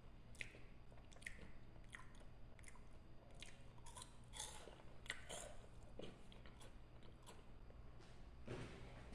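Faint crunching as a person bites into and chews a crisp cornmeal waffle-shaped corn snack: a string of short, sharp crunches, about one or two a second, that stop near the end.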